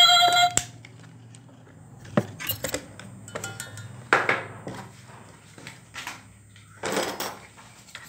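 Background music cutting off about half a second in, then scattered clicks and short clattery rattles of hard plastic as a toy RC car's chassis and body shell are handled and fitted together.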